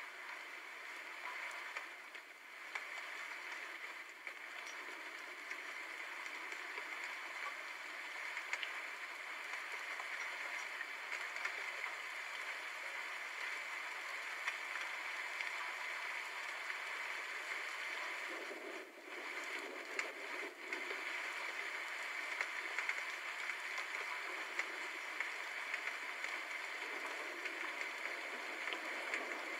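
Steady rain, an even hiss flecked with small drop ticks, with a couple of brief dips in level about two-thirds of the way through. No thunder rumble.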